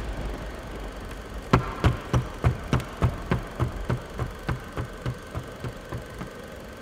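A quick, evenly paced run of thumps, about three a second, starting loud about a second and a half in and slowly fading away.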